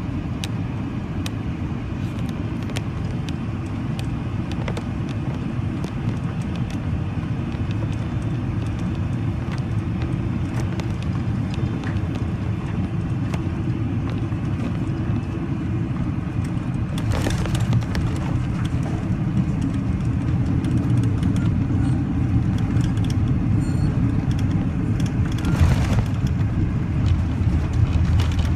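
Cabin noise of a Boeing jet airliner on final approach and landing: a steady low rumble that grows louder in the second half, with a brief louder rush about 17 seconds in and another shortly before the end.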